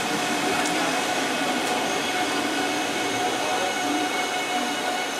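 Korail Line 1 electric multiple unit moving slowly past the platform as it pulls out, with a steady hum of motor whine and wheel noise made of several held tones.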